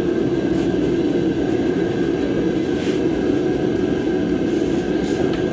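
A steady mechanical drone with a faint high whine, unchanging throughout, like a fan or other running machine in the workshop, with a couple of faint light ticks.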